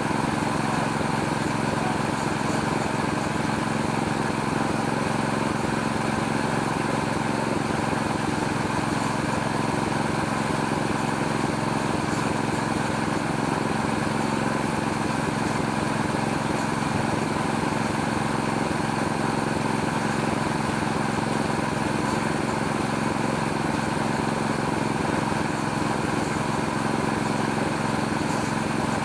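Small petrol engine running at a steady speed, driving a homemade oil palm fruit threshing machine.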